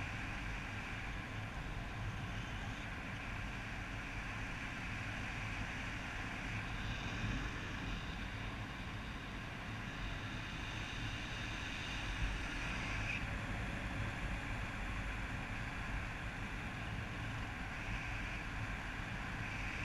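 Steady rush of wind over the microphone of a paraglider in flight, with a low rumbling buffet.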